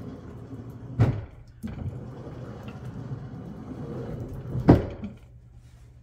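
Edson pedestal steering wheel being turned from port to starboard, the steering gear giving a steady low rumble as it runs, with two sharp knocks, the louder near the end. It is being checked for free movement after new steering cables were fitted, and it turns easily.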